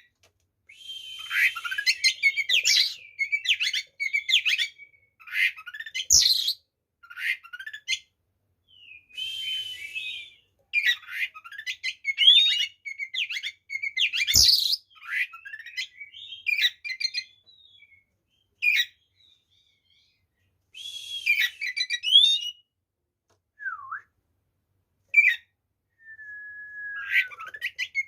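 Oriental magpie-robin (kacer) singing hard in its combative 'tarung' mode: a packed string of short phrases of sharp whistles, quick trills and slides, broken by brief pauses, with a few harsh raspy bursts mixed in. This is the kind of song played to rouse other magpie-robins into singing. Two sharp clicks fall in the middle.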